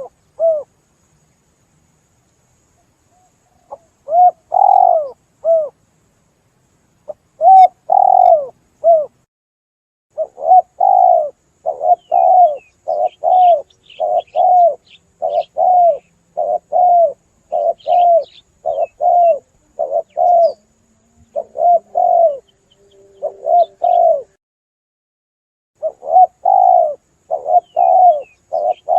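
Spotted dove (tekukur) cooing as a lure call: a few seconds of silence, then repeated cooing notes that come in a quick, steady series with one short pause. Faint high chirps of small birds sound in the background.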